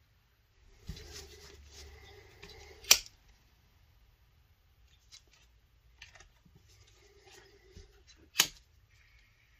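Scissors cutting: a rasping cut of about two seconds that ends in a sharp snap, then a few light ticks and a second sharp snap near the end.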